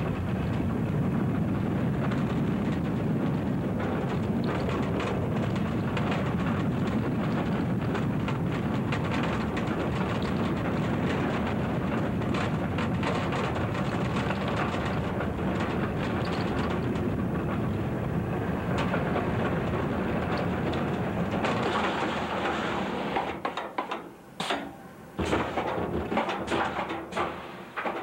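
Alpengeist, a B&M inverted roller coaster, with its train running along the track: a steady rumble with constant clatter. About three-quarters of the way through, the steady noise gives way to short, uneven bursts.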